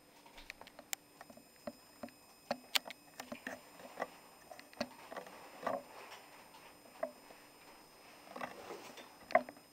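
Backpack and tactical gear being handled: rustling of straps and fabric with scattered light clicks and knocks as the pack is slipped off the shoulders, one sharper knock near the end.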